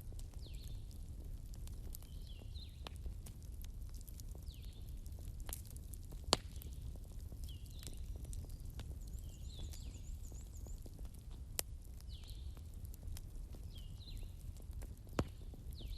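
Wood bonfire burning with a low steady rumble and scattered sharp crackles and pops, the loudest about six seconds in. A bird calls again and again with short falling chirps, with a brief high trill near the middle.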